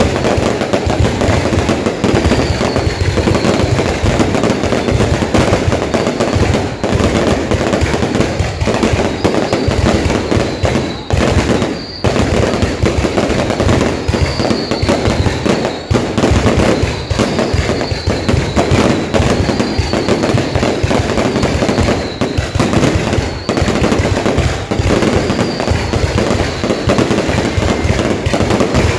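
Fireworks going off in a dense, continuous barrage of crackling bangs, with short high falling whistles every second or two.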